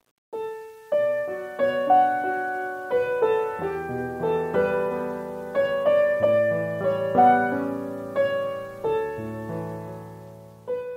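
Piano music: a melody of struck notes over chords that begins after a brief silence and fades near the end.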